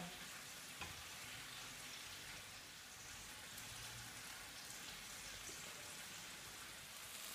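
Faint, steady sizzle of chicken pieces frying in an oiled grill pan.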